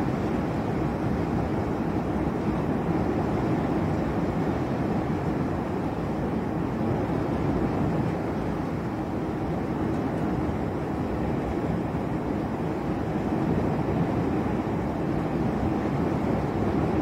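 Thunderstorm heard as a steady, even rushing rumble, with no sharp thunderclaps.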